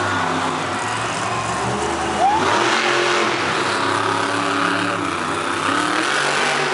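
Grave Digger monster truck's supercharged V8 revving up and down as it drives, with a sharp jump in revs a little over two seconds in.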